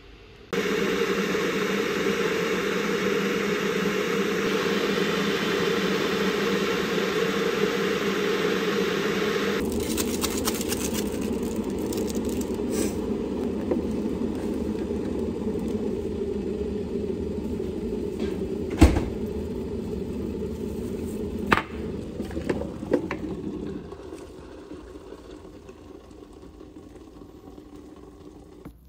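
Electric kettle heating water: a steady rushing hum that starts suddenly and drops away about three quarters of the way through. A few sharp clicks sound near the end.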